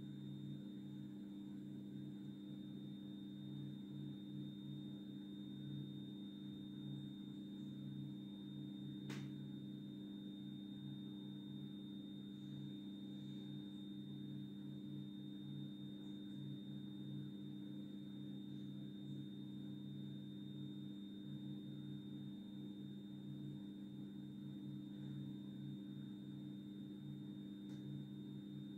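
A steady low electrical hum with a faint high-pitched whine above it, and a single sharp click about nine seconds in.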